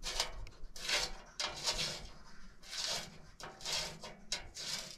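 A bolt being turned in by hand on the Komatsu D31 bulldozer's sheet-metal side panel, making short, irregular scraping rubs about once a second.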